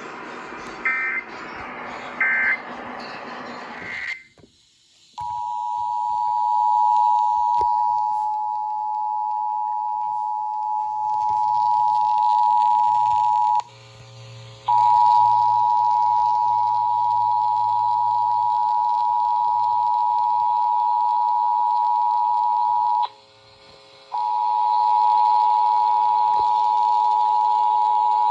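Emergency Alert System broadcast tones: two short bursts of SAME digital data tones in the first few seconds, the end-of-message code. Then, from about five seconds in, the steady two-tone EAS attention signal, 853 and 960 Hz sounding together. It cuts out for about a second twice and resumes, joined by fainter lower tones after the first break.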